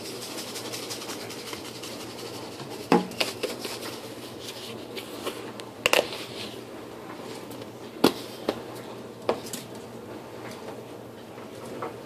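A few sharp knocks and clicks, the loudest about three, six and eight seconds in, with lighter ticks between, over a steady faint hiss.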